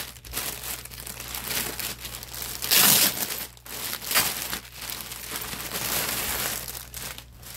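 Thin clear plastic packaging bag crinkling and rustling as hands pull it open and slide a wrapped handbag out of it. The loudest rustle comes about three seconds in.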